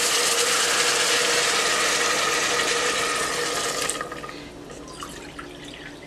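Water poured from a pitcher into a hot pot of vegetables sautéing in olive oil, hissing and sizzling loudly as it hits the hot oil and pan. About four seconds in the loud hiss drops away suddenly, leaving faint crackling.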